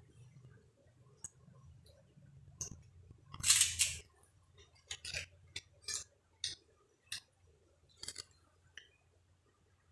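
Crunchy eating: kerupuk crackers being bitten and chewed, sharp crunches about every half second, with a longer, louder crunch around three and a half seconds in.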